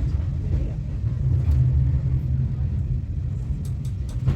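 Steady low rumble of a moving British Rail Mk2 passenger coach's wheels and bogies on the track, heard from inside the coach.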